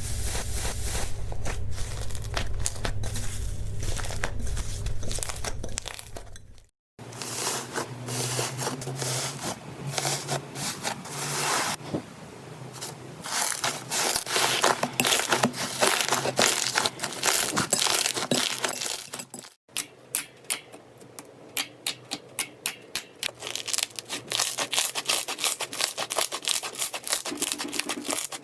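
Slime being squeezed and worked by hand, with sticky crackling and popping, in three short cuts; in the last one it turns into quick separate pops, several a second.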